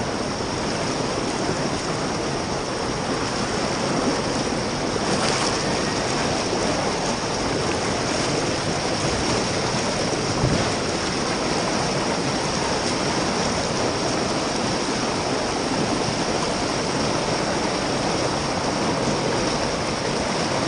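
Steady rushing wind noise over the microphone of a rider's camera on a moving motorcycle.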